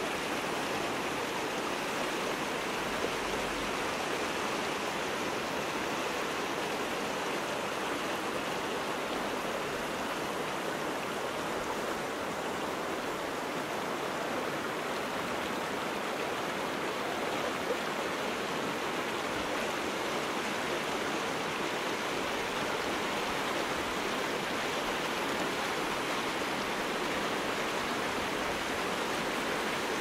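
River rapids: shallow water rushing and splashing around and between large boulders, a steady, unbroken rush.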